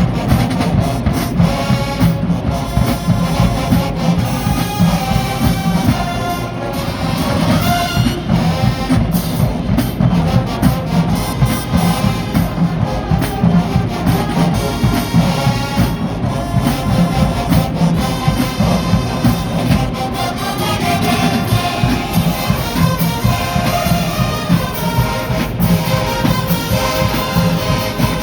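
Marching band playing: brass horns over a steady pounding drum line.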